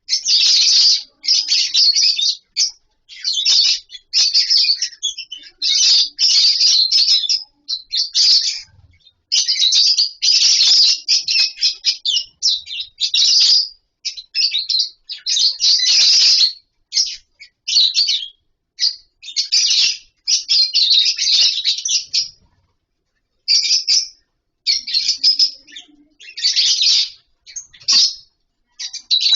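A colony of lovebirds chattering with shrill, rapid high chirps, coming in bursts of a second or two with short silent gaps between them.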